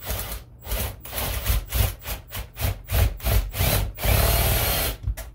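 Power drill boring a hole through a wooden door, run in a quick series of short bursts, then held on for about a second near the end before stopping.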